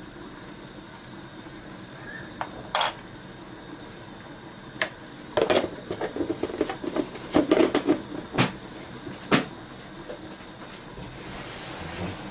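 A metal spoon clinking and knocking against a cooking pot and spice containers as ground spice is measured in. There is one ringing tap about three seconds in and a busy run of taps and scrapes in the middle, over a steady faint hiss.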